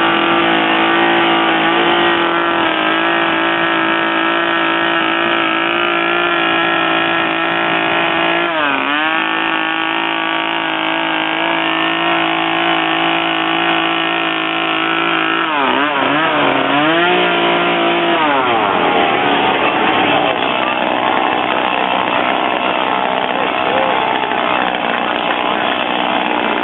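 Chainsaw running at high revs during wood carving, its pitch dipping sharply and recovering once about a third of the way in and twice more around the middle. In the last third the engine note turns rougher and more uneven.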